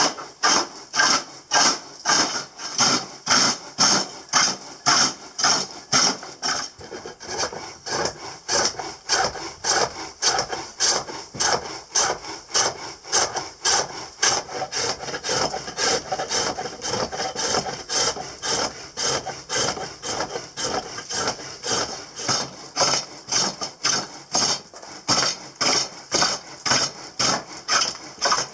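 Turning tool cutting a spinning wooden blank on a leg-powered spring-pole lathe, in regular strokes of about two a second. Each treadle down-stroke spins the wood into the tool for a cut and the return stroke cuts nothing, so the cutting comes and goes in a steady rhythm.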